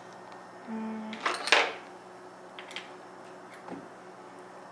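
Metal hand tools and sockets clinking, with a loud clatter about a second and a half in and a few lighter clicks after.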